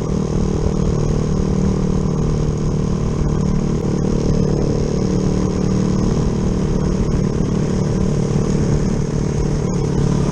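Yamaha Jupiter MX's single-cylinder four-stroke engine, bored out with a 72 mm piston, running at a steady pace while being ridden, its pitch holding nearly even.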